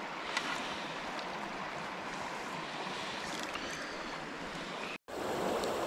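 Steady rush of a small stream's flowing water, with a few faint clicks. The sound cuts out for an instant about five seconds in, then comes back slightly louder.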